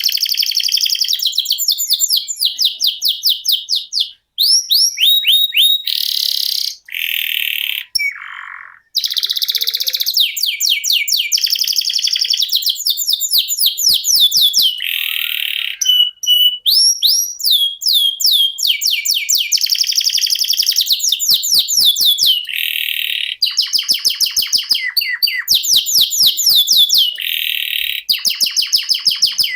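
Domestic canary singing a long, rolling song of fast repeated trills, quick sweeping notes and buzzy rolls, pausing briefly about four and eight seconds in.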